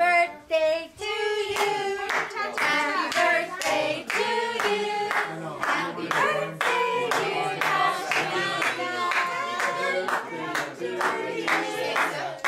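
Singing voices with hand clapping along, heard as one continuous song.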